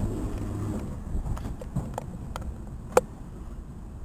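London Underground Bakerloo line 1972 Stock tube train moving off. A low rumble fades in the first second, followed by a scatter of sharp clicks and knocks from the wheels and track, the loudest about three seconds in.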